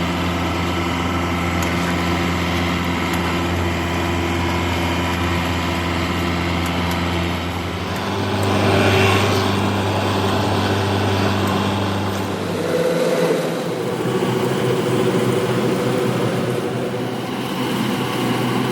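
Engine of a rice-harvesting machine running steadily. Its note shifts about eight seconds in, and again near thirteen seconds, when the deep hum drops away.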